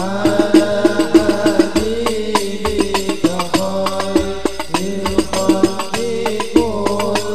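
Al-Banjari ensemble singing sholawat together, held melodic lines over quick, dense strokes of rebana frame drums, amplified through a PA sound system.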